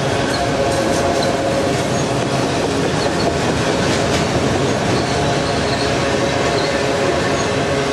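Freight train cars rolling past with a steady rumble of wheels on rail, a faint wheel squeal running through it.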